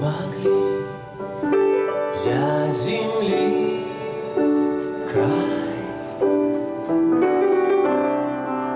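A man singing to his own grand piano accompaniment: held piano chords throughout, with short sung phrases that rise and fall in pitch coming in several times.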